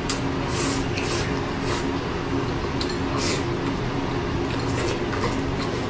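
Close-up wet chewing and mouth smacking while eating soft braised pork belly and rice: several short squelchy smacks over a steady low background hum.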